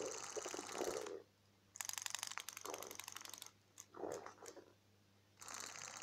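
Battery-powered robotic Nemo clownfish toy's small tail motor running out of water, a rapid ratcheting click in short runs with brief stops.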